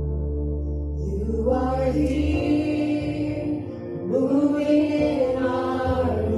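Slow worship music: a voice singing long, gliding notes over sustained low bass notes.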